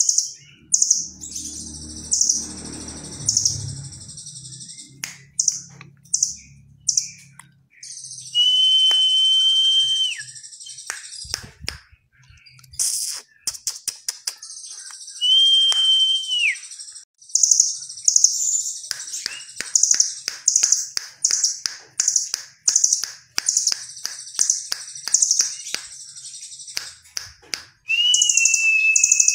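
Rambatan doraemon nuthatch calling. Runs of short, high chirps, some coming fast, are broken three times by a long whistle that holds one pitch and then drops at the end. A low rumble comes in the first few seconds.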